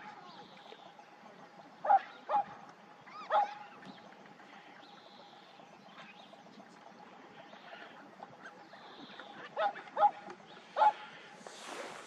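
Eurasian coots calling: short, sharp single notes, three in the first few seconds and three more near the end. Faint high chirps and a faint steady hum lie beneath them.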